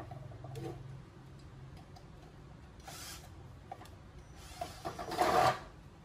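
Parts of a shoe cabinet being handled and fitted together: a low hum dies away in the first second, then short scraping and rustling noises, the loudest and longest about five seconds in.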